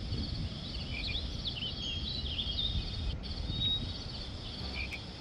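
Small birds chirping and twittering over a steady low rumble, with a continuous high insect trill.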